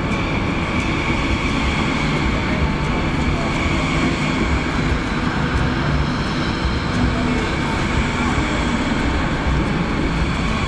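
High-speed train running: a steady rumble with a thin high whine above it.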